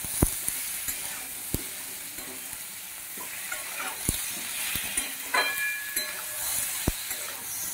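Spiced vegetable pieces (potato, aubergine, flat beans, chilli, tomato) sizzling in a metal kadai as a metal spatula stirs them, with a steady frying hiss and a few sharp clicks of the spatula knocking against the pan.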